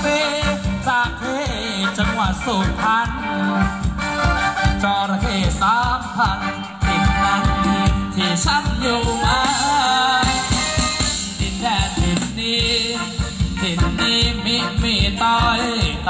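Live band playing Thai ramwong dance music: a melody that bends and wavers in pitch, over drums and bass keeping a steady beat.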